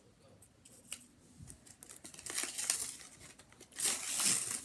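Clear plastic fingerboard packaging crinkling and tearing as it is handled and opened. A few faint clicks at first, then rustling that grows loudest near the end.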